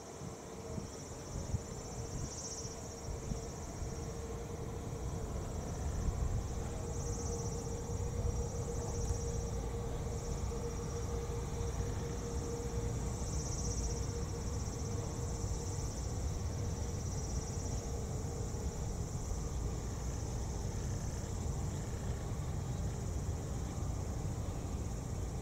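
Insects chirring in a high, steady band that swells and fades every few seconds. Under them is the low rumble of a Boeing 787-8's Rolls-Royce Trent 1000 jet engines at low power as the airliner rolls slowly after landing; the rumble grows louder about six seconds in.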